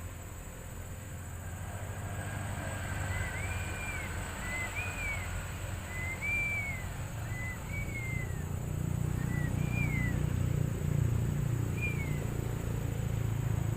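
A bird calling over and over in short, arched whistled notes, roughly one every second and a half, over a low rumble that grows louder in the second half, with a faint steady high-pitched tone throughout.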